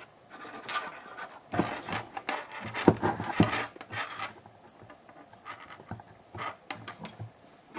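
Close handling noises: irregular rubbing and scratching with light clicks and knocks, as wires and tools are handled.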